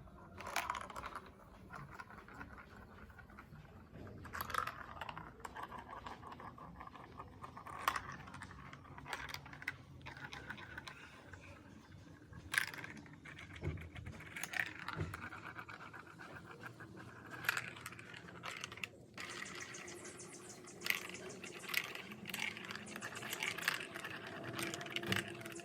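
Plastic marble run building-block toy: scattered sharp plastic clicks and clatters, with stretches of a few seconds of steady rolling sound like marbles running along the tracks.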